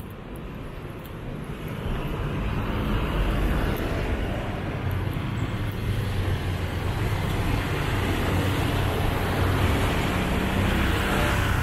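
Road traffic on a city street: vehicles passing, with a low engine hum that gets louder about two seconds in and stays steady.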